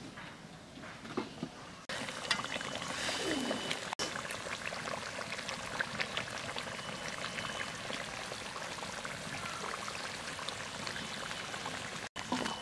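Curry gravy simmering in a metal karahi, a dense steady bubbling and spluttering that starts about two seconds in, after a few quiet knocks.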